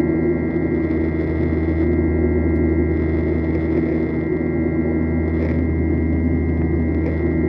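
Airliner cabin noise during the climb after takeoff: the jet engines and rushing air make a steady drone with a low hum and a constant high whine.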